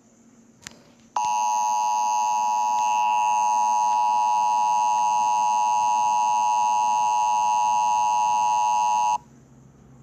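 Emergency Alert System attention signal: a steady, unwavering two-tone alarm that starts about a second in, holds for about eight seconds and cuts off abruptly. It signals that an emergency broadcast, here a flash flood warning, is about to follow.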